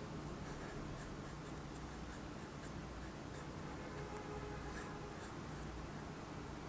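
Broad-edged calligraphy pen nib scratching across card in short strokes as letters are written, over a low steady background hum.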